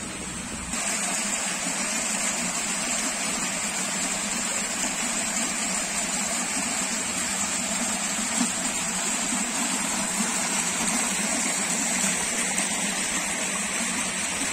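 Shallow water rushing and splashing down a stepped concrete channel, a steady rush that starts suddenly under a second in.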